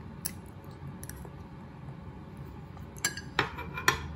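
Cutlery and dishes clinking at a table over a steady low room hum, with a cluster of sharp clinks about three seconds in.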